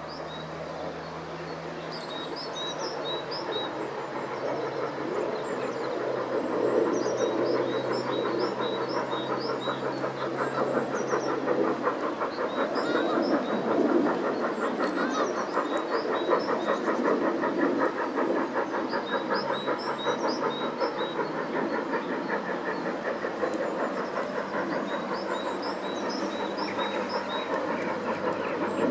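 Steam locomotive working a passenger train toward the listener, its exhaust beats coming fast and even and growing louder after a few seconds as it draws nearer. Small birds chirp throughout.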